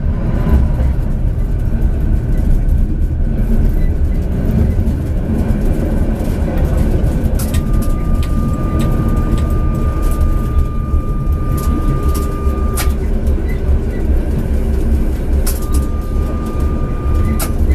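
Tram running along the street track, heard from the driver's cab: a steady low rumble of motors and wheels on rail. A steady high tone comes in twice, once through the middle and again near the end, each time starting and stopping with a click.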